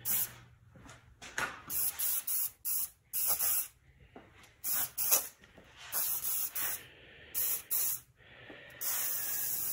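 Aerosol spray-paint can hissing in short bursts, about eight in a row, the last one longer.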